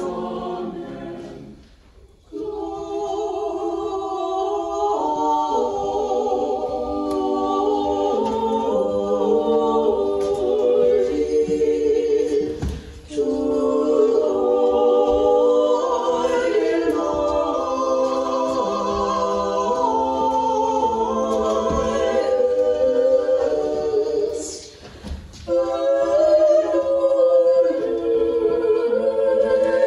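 Small mixed choir singing an Orthodox Matins hymn a cappella in several parts, with sustained chords. It breaks off briefly between phrases three times: about two seconds in, around thirteen seconds and around twenty-five seconds.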